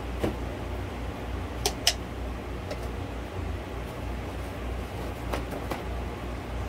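Steady, slightly pulsing low hum of grow-tent ventilation fans. A few short light clicks of plastic cups being handled come in two pairs, one a little under two seconds in and the other about five and a half seconds in.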